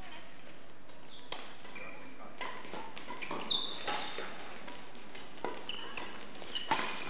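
Badminton rackets striking the shuttlecock in a rally: sharp cracks at irregular intervals of about a second, mixed with short squeaks of shoes on the court floor.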